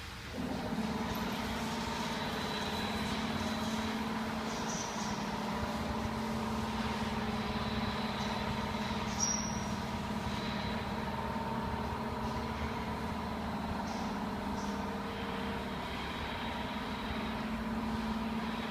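Steady machinery noise with a constant low hum and a few faint steady tones above it. It comes in suddenly just after the start and holds evenly.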